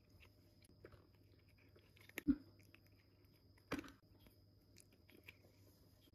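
A cat chewing small dry treats in faint crunches and ticks. Two louder sharp knocks stand out, the first a little over two seconds in and the second about a second and a half later.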